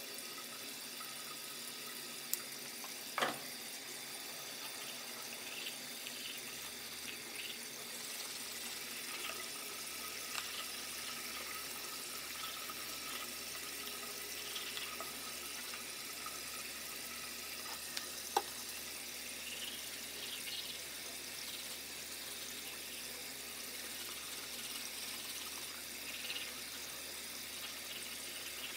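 Water running steadily from a tap into a sink, with faint toothbrush scrubbing and a few light clicks.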